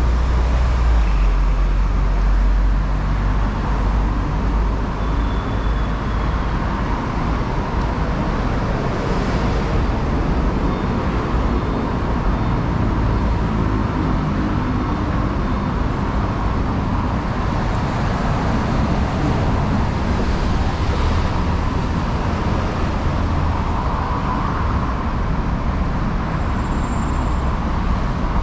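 Steady road traffic on a busy city road: cars and other vehicles passing continuously, with a low rumble underneath.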